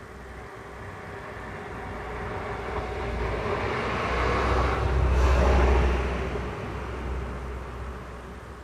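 A vehicle passing by: a broad rumble and hiss that builds to a peak about five seconds in, then fades away.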